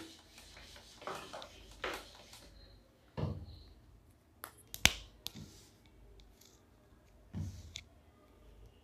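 Quiet handling sounds at a whiteboard: faint rubbing as the board is wiped by hand, then a dull knock about three seconds in, one sharp click just before five seconds, and another knock about seven seconds in.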